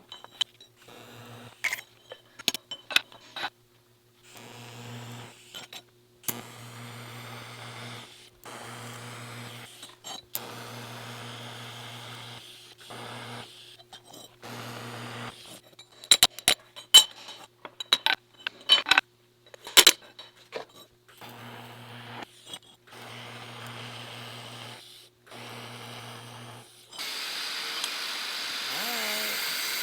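Metal tools and steel parts clinking and scraping in short edited cuts, with a steady electrical hum that comes and goes. The loudest part is a run of sharp metal clinks in the middle. Near the end a steady hiss sets in.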